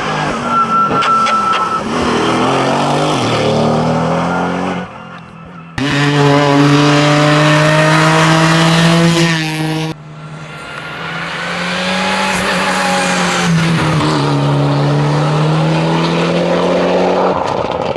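Hillclimb race car engines at hard throttle, their pitch climbing and dropping with gear changes. The sound cuts abruptly to a different car about six and ten seconds in.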